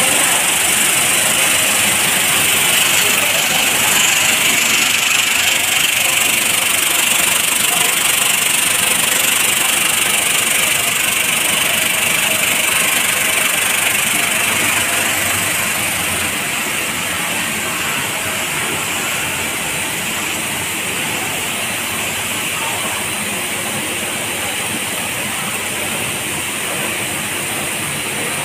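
Steady machinery noise of a running continuous snack frying line, a loud even hiss over a low rumble, easing slightly about halfway through.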